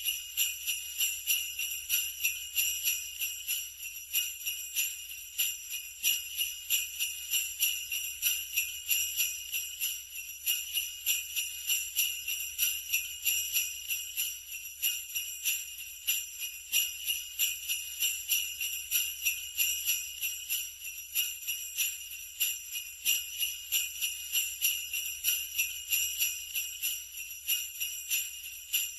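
Sleigh bells jingling continuously, shaken in an even rhythm of about three shakes a second, with a high metallic ringing.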